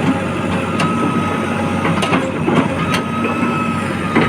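JCB 3DX backhoe loader's diesel engine running steadily under a high whine, with several sharp knocks and clatter scattered through.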